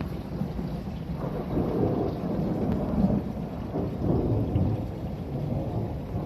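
Thunder rolling and rumbling low and continuously, swelling twice, about two and four seconds in, with rain falling.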